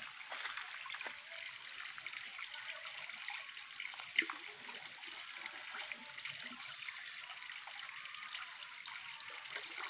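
Faint water sloshing and trickling as hands wash something in a wide pan of water, with one sharp click about four seconds in.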